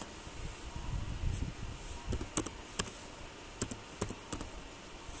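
Computer keyboard typing: a handful of separate soft keystrokes, bunched in the middle seconds, as text is entered.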